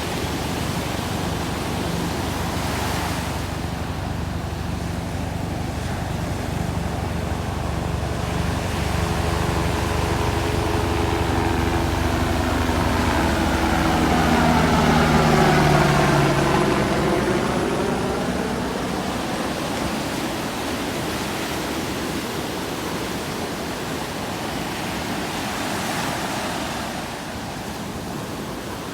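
Ocean surf breaking on a sandy beach as a steady rushing wash. Meanwhile a motor passes by, growing louder to a peak about halfway through with its pitch falling as it goes past, then fading under the surf.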